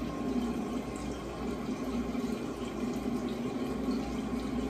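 Bathroom sink tap running steadily.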